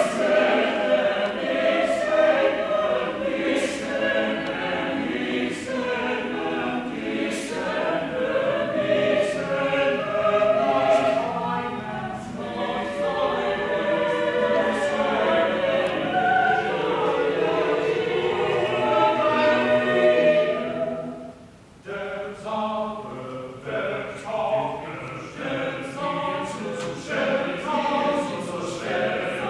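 A choir singing. It breaks off briefly about twenty-one seconds in, then goes on in shorter phrases.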